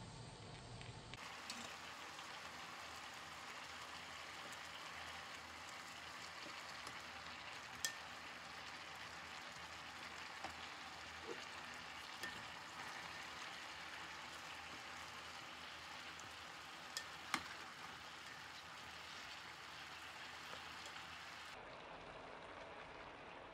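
A little water simmering and sizzling under vegetables steaming in a stainless-steel frying pan, a steady hiss. A few sharp clicks come as tongs turn the vegetables.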